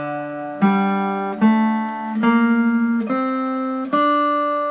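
Acoustic guitar with a capo at the 5th fret, played slowly: single picked notes of a mandolin-solo melody, about one a second, mostly stepping upward in pitch and each left to ring. About two seconds in, one note is picked rapidly for a moment.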